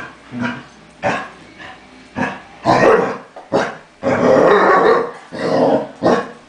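Basset hound growling and giving short barks in a string of bursts, some brief and some held for about a second: a warning to another dog that she is displeased.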